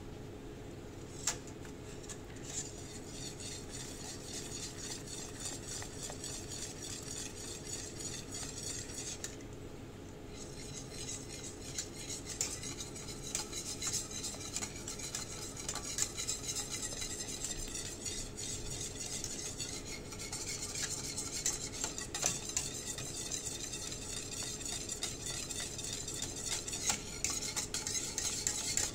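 Wire whisk beating liquid cream and melting cheese in a stainless steel pot, a fast steady swishing with the wires clinking against the pot's sides, broken by a short pause about ten seconds in. A sharp click sounds about a second in.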